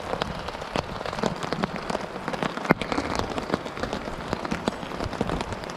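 Rain falling on an AquaQuest tarp overhead: a steady hiss with irregular sharp taps of drops striking the tarp, one louder tap a little before halfway.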